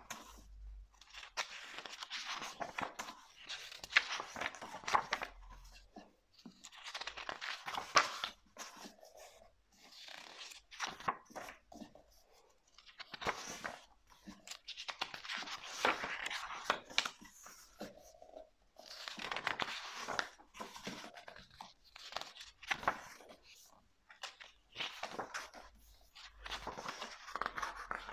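Pages of a book being turned by hand: a run of papery rustles and swishes every couple of seconds, with a crisp snap now and then as a page is flipped over and pressed flat.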